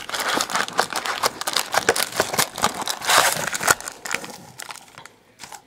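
Crinkling and tearing of packaging as a football card blaster box is opened and its wrapped packs pulled out: a quick run of crackles and rips that dies away about four seconds in.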